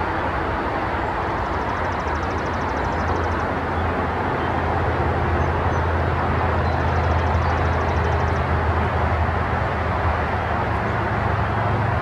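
Steady distant engine rumble that swells a little in the middle. Twice, a short trill of rapid high ticks sounds over it.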